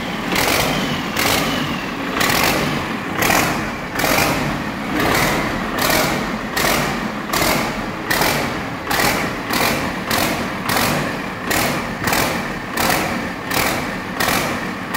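Freshly rebuilt Cummins 6BT 5.9-litre inline-six diesel running after its startup. Its sound pulses in a regular beat about twice a second.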